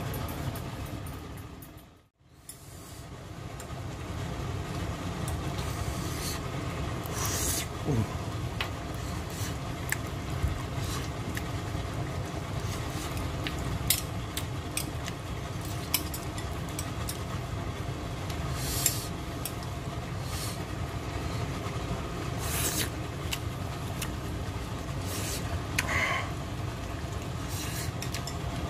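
A steady low hum with faint steady tones, dropping out briefly about two seconds in. Over it come scattered light clicks and taps of metal chopsticks against a ceramic bowl as a piece of braised chicken is pulled apart.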